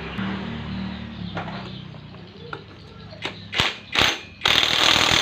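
Metal workshop tools on an engine: a few sharp metallic clicks, then a loud rattling run of about a second that cuts off abruptly.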